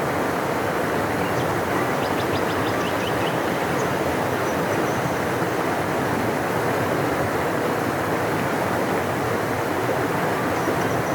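A large river rushing steadily, a deep even roar of water. A faint run of quick high chirps, likely a bird, comes about two seconds in.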